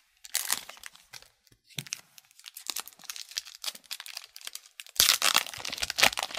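Foil wrapper of a hockey card pack being torn open and crinkled in the hands, a dense crackle of many short crinkles that gets loudest about five seconds in.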